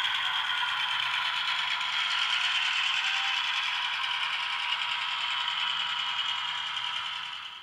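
HO-scale model freight train running past on the layout, a steady mechanical running sound that fades slowly as the train moves away. It cuts off suddenly at the end.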